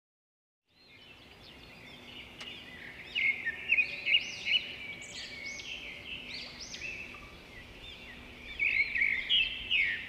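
Birds chirping, many quick high chirps overlapping, fading in about a second in after silence.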